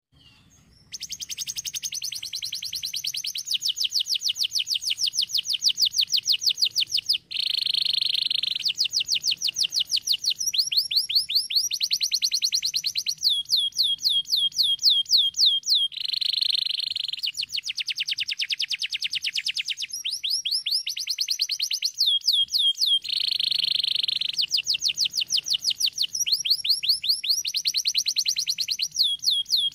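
Domestic canary singing a long, unbroken song of fast, high trills made of rapidly repeated notes, broken by a few harsher, buzzier rolls. The song starts about a second in.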